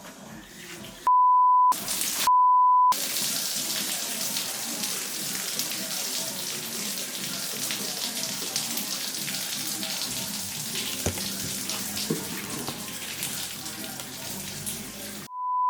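Two short, loud, pure beeps about a second in, then old coolant and flush water draining out of the Audi 90 quattro's cooling system in a steady splashing stream, with a third beep near the end.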